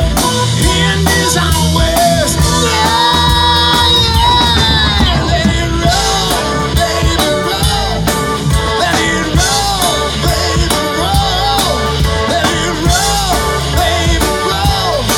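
Live rock band playing electric guitars and a drum kit over a steady beat. A lead line holds notes, then plays repeated bending notes over the beat.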